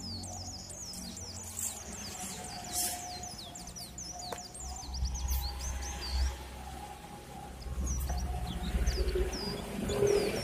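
Many small birds chirping in quick, short, falling notes throughout. Underneath runs a faint steady whine and a low hum that grows louder in the second half.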